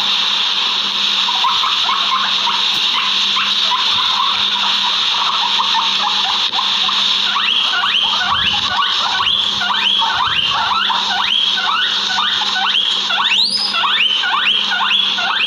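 Guinea pigs wheeking: short rising squeals repeated again and again, faint at first, then louder and at about two a second in the second half, with one higher squeal near the end. A steady high hiss runs underneath.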